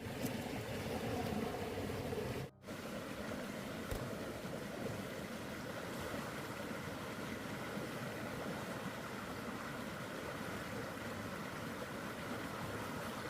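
Steady rush of flowing water, cut off briefly about two and a half seconds in.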